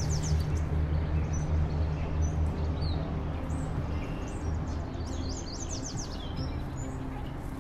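Several small songbirds calling with short, high chirps, some notes falling in pitch. A low rumble underneath is loudest at first and slowly fades.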